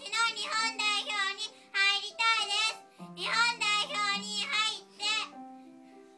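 A young boy singing a solo melody over steady held accompaniment notes. The singing stops about five seconds in, leaving the accompaniment fading away.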